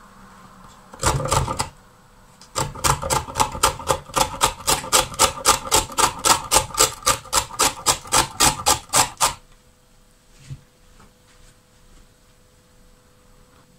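A small carrot grated by hand on a plastic box grater: a short first burst, then quick even rasping strokes at about four a second for around seven seconds, stopping abruptly.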